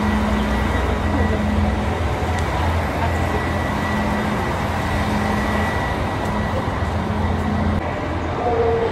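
JR Hokkaido KiHa 283 series diesel railcars standing at the platform with their engines idling: a steady low rumble that echoes under the station roof. A higher wavering tone comes in near the end.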